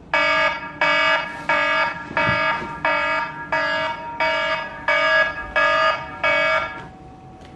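Smartphone alarm going off: an electronic ringtone of ten short rings about two-thirds of a second apart, stopping near the end.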